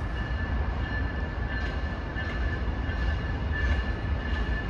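A train out of view running nearby: a steady low rumble with a steady high-pitched whine held throughout and a few faint light ticks.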